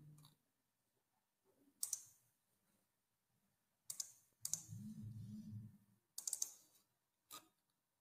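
Faint, scattered sharp clicks, a few separate ones spread through, with a short cluster around the middle. A brief low, muffled murmur comes about halfway through.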